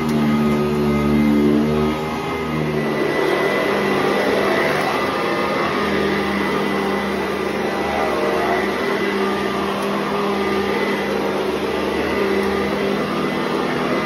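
Upright vacuum cleaner running steadily while it is pushed over carpet: a constant motor drone with a thin high whine above it.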